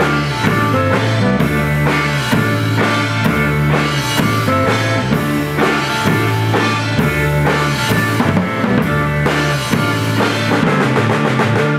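Rock band playing an instrumental passage with no singing: drum kit with bass drum and snare hits over sustained bass and guitar chords. The drum hits come faster near the end.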